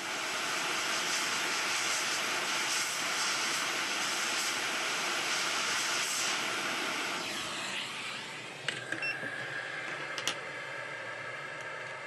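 JBC hot air rework station blowing a steady hiss of air at 435 °C and 70% airflow onto a phone's charging connector to melt its solder. About eight seconds in the hiss weakens, and a few light clicks follow.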